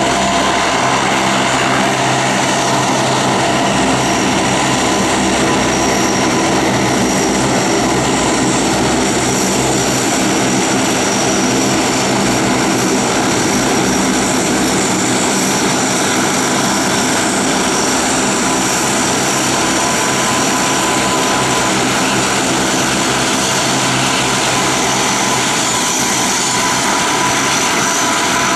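Propeller aircraft engines running steadily and loudly: a low drone from the propellers with a steady high whine over it.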